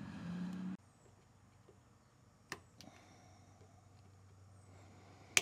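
A low steady hum cuts off just under a second in, leaving quiet room tone. A few short clicks follow, the loudest near the end, as a scissor blade works at the plastic clips joining two battery-pack umbrella valves.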